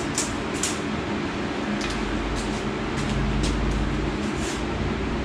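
Steady hum of a running shop fan, with several short, light scrapes and clicks of a metal head gasket being handled off the engine block.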